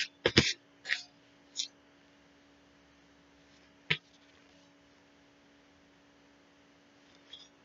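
Clear plastic record sleeve crinkling as an LP is handled, in four short bursts during the first second and a half, then a single sharp click about four seconds in.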